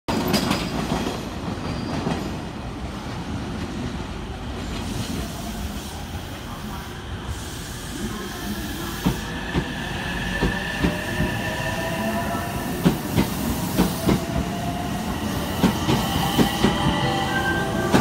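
JR West 225-5100 series electric train, coupled to a 223 series set, pulling out of the station. From about eight seconds in, a whine climbs steadily in pitch as it gathers speed, and the wheels clack over rail joints more and more often.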